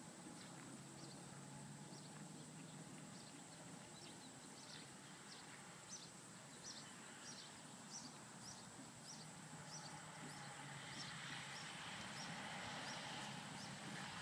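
Faint hoofbeats of a horse trotting on grass, a soft regular beat about one and a half a second, under a steady outdoor hiss that grows louder in the last few seconds.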